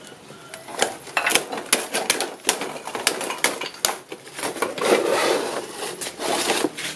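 Old marine plywood being pried and split apart to free its thin wooden strips: a run of sharp cracks and clicks, then two longer tearing, scraping sounds in the second half as a strip is pulled away.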